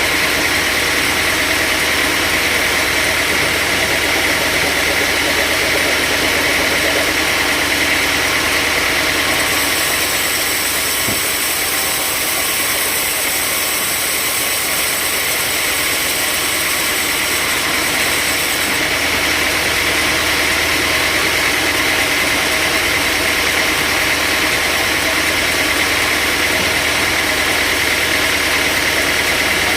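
Sawmill machinery running with a steady engine-like drone and hiss. A brighter high hiss joins for about ten seconds in the middle, then drops away.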